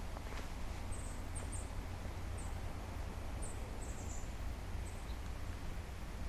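Forest ambience: short, very high-pitched bird chirps at irregular intervals, about every second, over a steady low rumble and hiss.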